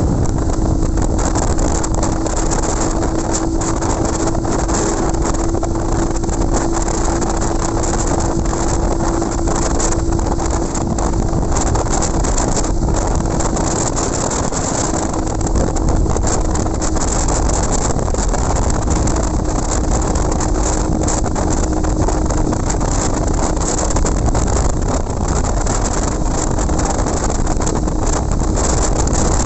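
Small motorcycle's engine running at a steady cruising speed on the highway, under heavy wind buffeting on the microphone. A steady engine tone holds for the first half, then comes and goes.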